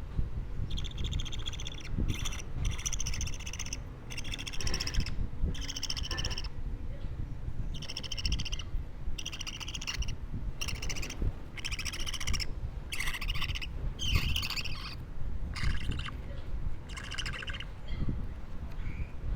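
A baby budgerigar (parakeet chick) calling over and over: short repeated calls, each under a second, with brief gaps between them.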